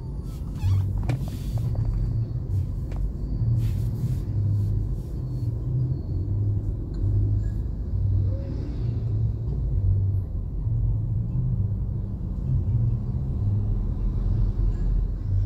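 Car driving, its low engine and road rumble heard from inside the cabin, with a few light clicks in the first few seconds.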